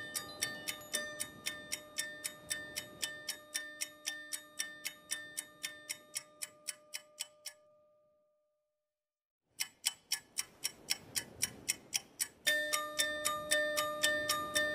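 Background music built on a steady clock-like ticking beat, about four ticks a second, under held notes. It fades out about halfway through and is silent for a little over a second. The ticking then comes back, with the held notes returning louder near the end.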